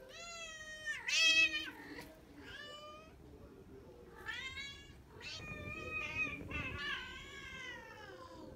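Longhaired colorpoint cats giving a run of long, wavering yowls, the loudest about a second in. It is the caterwauling of mating behaviour: a tomcat neutered only four days earlier is still mounting another cat.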